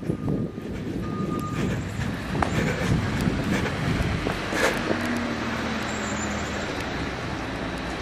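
Road traffic: a vehicle going by on the street, a steady rush of engine and tyres with a faint hum. There are a few knocks from the camera being handled, the sharpest just before five seconds in.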